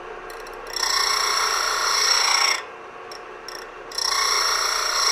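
Steel twist drill bit being sharpened on the abrasive disc of a 6-inch disc sander: two grinding passes of a second and a half to two seconds each as the bit is rolled across the disc to grind the point and its relief. The sander runs quieter between the passes.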